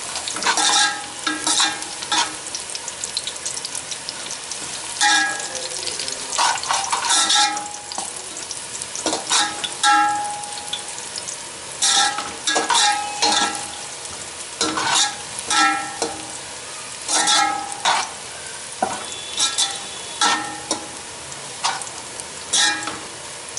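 Sliced onions sizzling in hot oil in a metal pot, stirred with a metal spoon that scrapes and clinks against the pot, making it ring briefly about once a second. The onions are at the light golden stage of frying.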